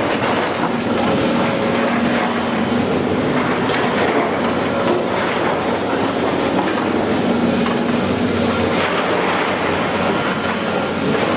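Demolition excavators working: diesel engines running under load while a hydraulic shear crunches concrete and steel, with rubble and scrap clanking down, a steady loud din throughout.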